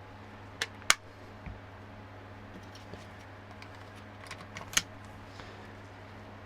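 Sharp clicks and light taps of small plastic parts being handled while the cordless electric carving knife is apart, two loud clicks about a second in and a cluster of clicks near five seconds, over a steady low hum.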